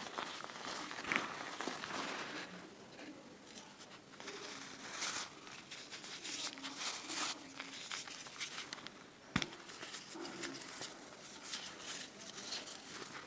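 Green-dyed reformed gym chalk crumbling and crunching in the hands, pieces breaking and powder sifting down, with many small dry crackles and a sharper snap about nine seconds in.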